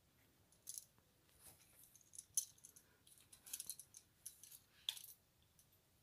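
Faint, irregular clicks and small clinks of a wall outlet and its copper wires being handled and bent into place at the box, the sharpest click a little before halfway.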